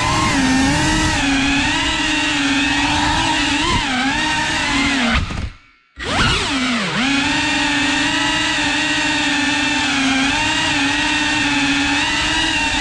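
Cinewhoop FPV drone's brushless motors whining, the pitch wavering up and down with the throttle. A little past five seconds in, the sound drops away almost to nothing for about half a second, then the motors spool back up with a rising whine.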